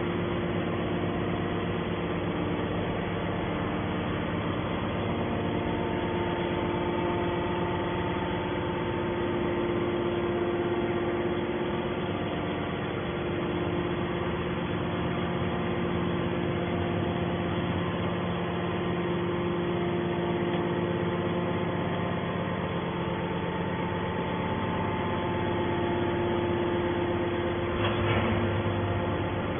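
Hydraulic scrap metal baler running, its power unit giving a steady hum with several constant tones. A brief knock sounds near the end.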